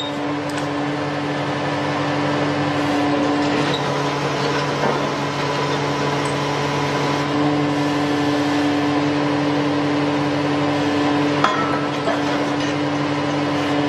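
Truck-mounted borewell drilling rig running with a steady, even drone, with a single sharp knock about eleven and a half seconds in.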